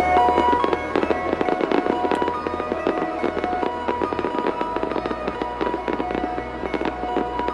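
Fireworks display: a dense, rapid crackle of many small bursts and pops, over accompanying music with held notes.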